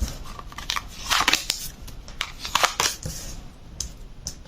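Tarot cards being handled, shuffled and laid out, giving irregular short papery swishes and clicks.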